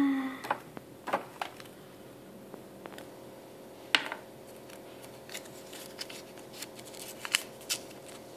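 Small plastic toy figures and a folded paper card being handled on a tabletop: a scattering of light taps and clicks, the sharpest about four seconds in.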